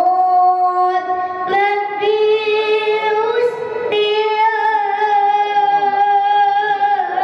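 A high female voice singing a few long held notes, the pitch stepping to a new note every couple of seconds.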